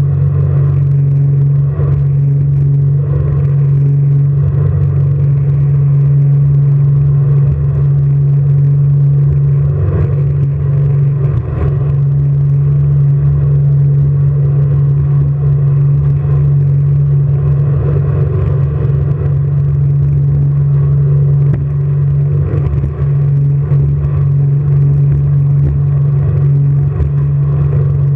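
Jet boat engine running hard and steady at speed, a constant low drone, with rushing water and wind noise over it.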